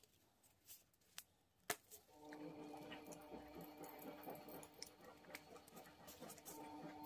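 Faint steady hum of a washing machine, several even tones that set in about two seconds in and keep on. Before it, a few light clicks and taps from handling a plastic paint bottle.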